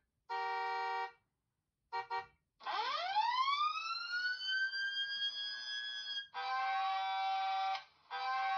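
A smartphone's loudspeaker playing a run of short alert-tone previews one after another as tones are picked from a list: a brief steady electronic chime, a short blip, a siren-like sweep that rises and then holds for a few seconds, then two steady electronic tones.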